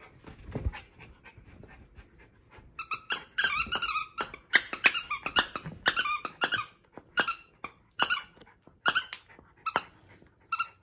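Squeaker inside a plush toy squeezed by a schipperke puppy's bite. Soft rustling first, then a quick run of high-pitched squeaks about three seconds in, slowing to single squeaks about once a second.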